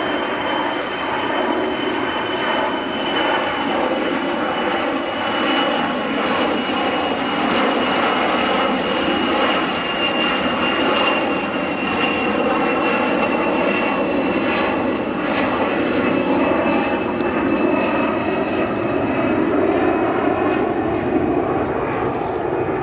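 Kawasaki C-1 transport's twin turbofan engines running as it flies past: a steady loud engine noise with a high whine that slowly falls in pitch.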